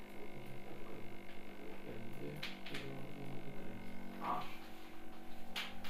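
Steady electrical hum, with a man's low, murmured voice under it and a few faint clicks.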